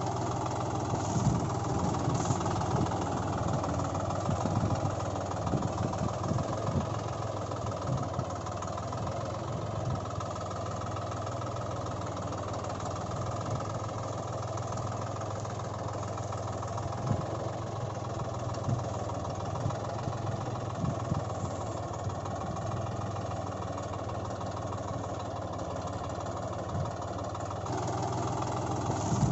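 Tractor engine running steadily at idle, a continuous low hum with a slight change in tone shortly before the end.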